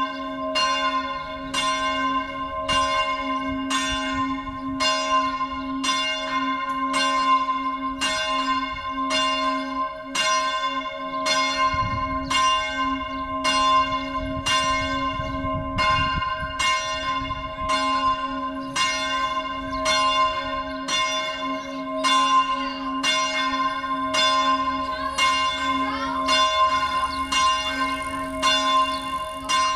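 A four-bell church peal in G-flat, swung in the Tyrolean style and ringing all together as the full peal for noon. The strokes overlap at about three every two seconds over a continuous ringing hum.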